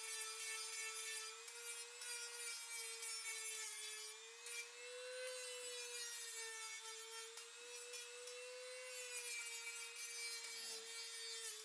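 Corded rotary tool running at high speed, grinding a cast-iron part with a small abrasive stone: a steady high whine whose pitch sags and recovers slightly as the stone bites, over a rasping grinding hiss.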